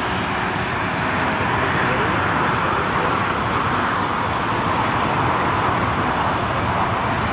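Jet airliner engines running, a steady, even rushing noise.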